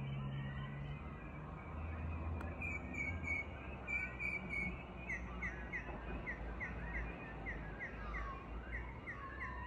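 Dawn chorus: several birds calling and singing at once over a steady low background hum. From about halfway, one bird repeats a short, clipped note about three times a second, while others give sliding whistles.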